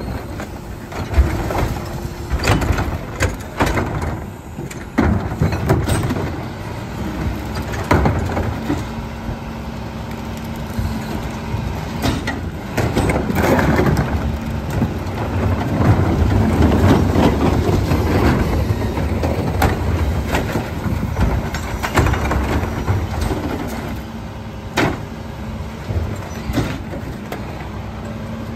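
McNeilus rear-loader garbage truck running at a recycling pickup, its diesel engine driving the hydraulic packer, with many sharp knocks and clattering as recycling carts are emptied into the hopper. A dense, crunching stretch about halfway through as the load is packed is the loudest part.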